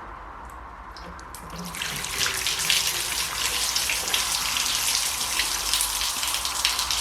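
Water pouring steadily as a container is filled, starting just under two seconds in, with a few light clicks before it.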